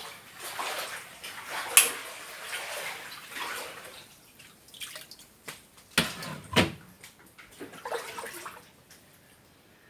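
Floodwater splashing and sloshing in irregular bursts, dying down after about four seconds. There is a sharp knock about two seconds in and two heavier thuds around six seconds in.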